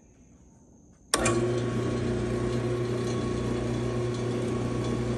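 Central Machinery 16-speed floor drill press switched on with a click about a second in, then its 3/4 hp motor and belt drive running with a steady hum.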